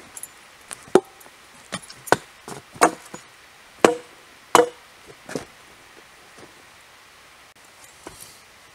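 A series of sharp wooden knocks, wood striking wood about seven times, the loudest two a little over half a second apart around four seconds in.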